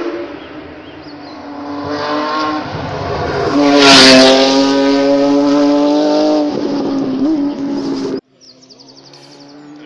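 Rally car engine at high revs approaching and passing close by, loudest about four seconds in, its pitch dipping as it goes past, then running on hard as it moves away. The sound cuts off abruptly near the end, leaving only a faint engine in the distance.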